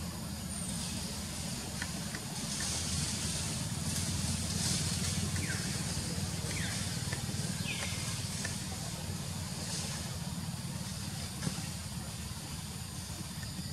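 Outdoor forest ambience: a steady low rumble under a high hiss that swells and fades several times, with a few short falling chirps in the middle and a single sharp click near the end.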